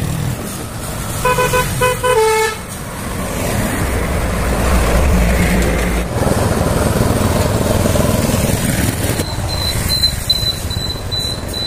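A vehicle horn toots three short times about a second in, over the rumble of passing road traffic. Near the end a high-pitched beeping starts.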